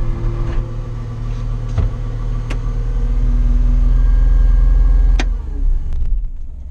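Caterpillar 259D compact track loader's diesel engine running, heard from inside the cab. It grows louder through the middle, then a sharp click about five seconds in, and the engine settles to a lower, quieter hum near the end.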